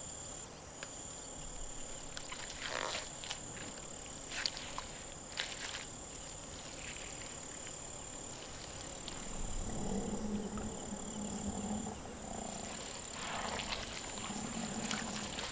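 A wild nature soundtrack. A steady chorus of crickets and other insects trills high throughout, with a few faint rustling clicks. In the second half there is a run of short, low, pitched animal calls.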